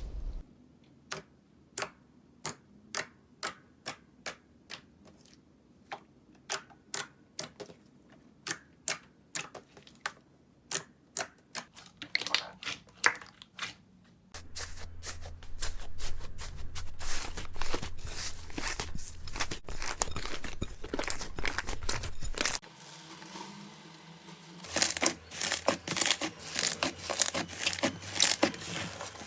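Slime being pressed and squeezed, giving sharp separate crackles about two or three a second, then a denser run of crunching and crackling; it eases off briefly and then crackles rapidly again near the end.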